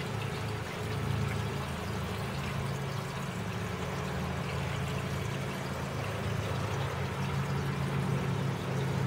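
A motor running with a steady low hum, over a faint wash of trickling water.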